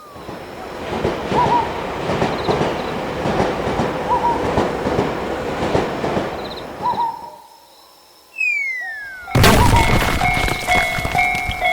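A train passing: a steady rush of wheel and running noise for about seven seconds that fades away. Then comes a falling whistle-like slide tone and, near the end, a sudden loud hit followed by a bright repeating chime jingle.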